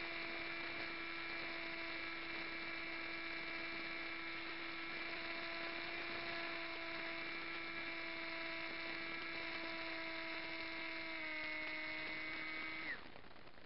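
A model flying wing's propeller motor running with a steady whine, picked up by a camera mounted on the airframe. The pitch steps down slightly about 11 seconds in, then the motor is shut off and the whine glides down and stops about a second before the end.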